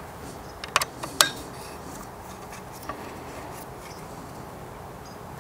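A few light, sharp metallic clicks and taps from an Allen wrench snugging the action screws of a rifle into its chassis. There is a quick cluster about a second in and one more click near three seconds in, over a steady background hiss.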